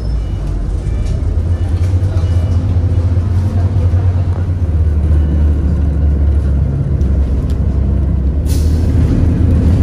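Inside a moving city bus: a steady, loud low rumble of the engine and road. A sudden hiss of air cuts in near the end and fades quickly.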